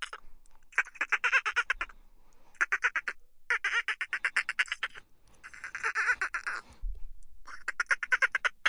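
Dolphins chittering: about five bouts of rapid pulsed squawks, each up to a second and a half long, with short pauses between them.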